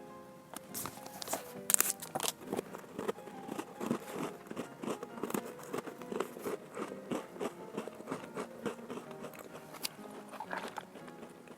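Crisp biscuits being bitten and chewed close to the microphone: many quick crunches from about a second in, thinning out near the end, over background music.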